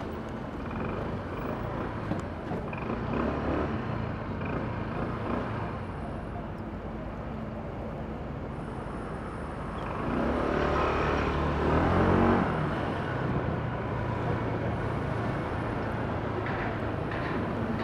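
Honda PCX 125 scooter's single-cylinder four-stroke engine running with tyre and road noise while riding through city streets. Just past the middle the engine note rises and grows louder for a couple of seconds as the scooter accelerates, then settles back.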